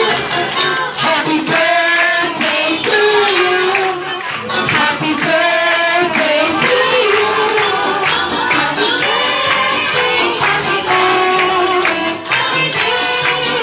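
Music: an upbeat song with singing voices.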